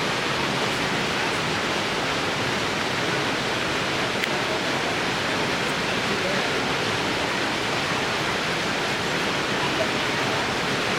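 Steady, even rush of a waterfall pouring into a river pool.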